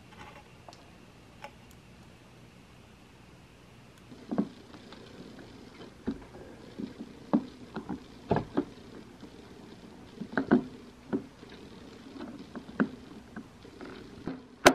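An old yellowed plastic case being pried and worked off a Google Pixel phone by hand: irregular clicks, knocks and creaks of plastic that come thick and fast from about four seconds in, with a sharp click near the end.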